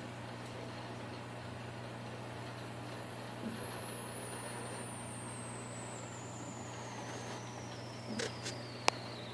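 A steady low hum with faint hiss, a thin high whistle slowly falling in pitch throughout, and a few light clicks near the end.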